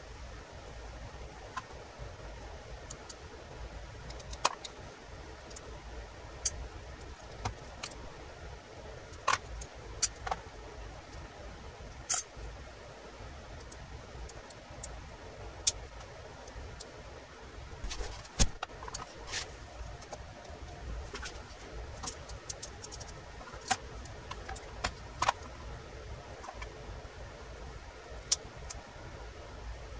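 Irregular sharp metallic clicks and clinks of small steel parts and tools being handled as an antique Beaumont Adams percussion revolver is taken apart, over a faint steady hiss.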